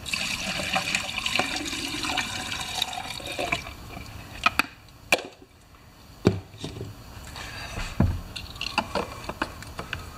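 Two-stroke fuel mix pouring from a measuring cup through a plastic funnel into a chainsaw's fuel tank, a steady trickling hiss for about three and a half seconds. Then a few scattered knocks and clicks as the funnel comes off and the tank cap is handled.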